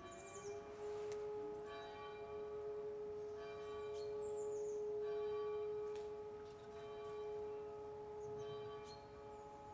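E57 electromechanical civil-defence siren holding a steady tone at full speed, its rotor spinning the wrong way because the three-phase motor has the wrong phase sequence. Church bells ring alongside, with a few short bird chirps.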